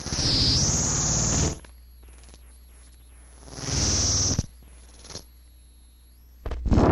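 Harsh experimental noise music: blocks of dense, loud noise that start and stop abruptly, with a low hum between them. The first block lasts about a second and a half and carries a high whine that dips and climbs back. A shorter block comes midway, and another starts near the end.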